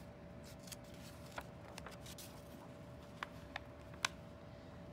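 Pages of a picture book being turned by hand: soft paper rustles and a handful of small clicks, the sharpest about four seconds in, over a faint steady hum.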